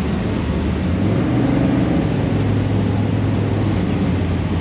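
Steady engine drone with a constant low hum, typical of a dirt-track pit area.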